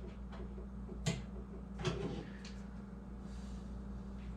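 A few light clicks and taps of a screwdriver and screws against a computer case as the motherboard screws are taken out, over a steady low hum.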